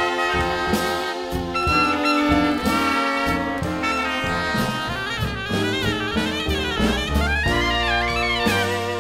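Brass ensemble of saxophone, trumpet and trombone playing a jazzy arrangement over a bass line. Held chords give way about halfway through to a quick, winding lead line.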